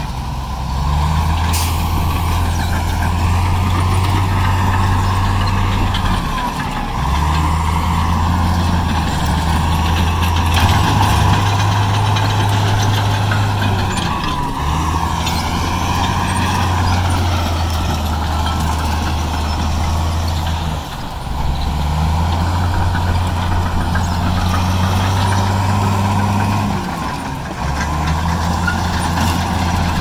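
Bulldozer diesel engine working under varying load, its low note shifting pitch and dipping briefly about every six to seven seconds, with a steady high whine alongside.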